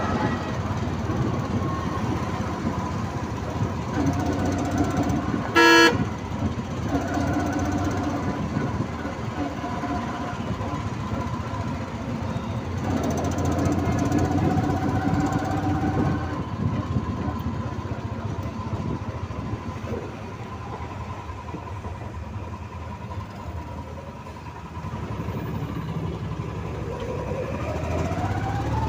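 Auto-rickshaw engine running and road noise heard from inside the moving auto, with one short, loud horn honk about six seconds in and fainter honking of other traffic.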